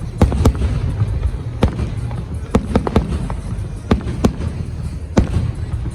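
Aerial fireworks going off: about ten sharp bangs at irregular intervals, some in quick succession, over a continuous low rumble.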